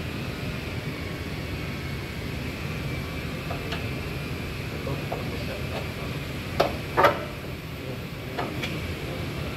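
Steady workshop background noise with a few sharp knocks, the loudest two close together about seven seconds in.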